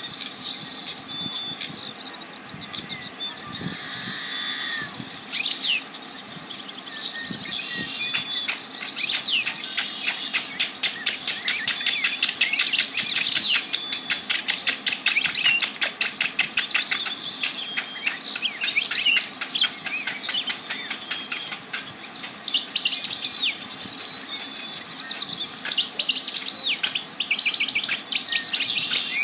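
Several birds chirping and singing over one another in short, overlapping phrases. About eight seconds in, a fast, even ticking sets in alongside them.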